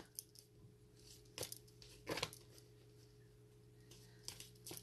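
Near silence: a few faint, brief rustles, about a second and a half in, at two seconds and again just before the end, over a low steady hum.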